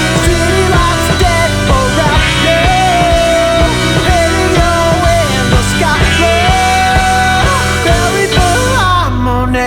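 Rock band music with a steady drum beat and a sliding, bending lead melody. Near the end the high end drops away for a moment.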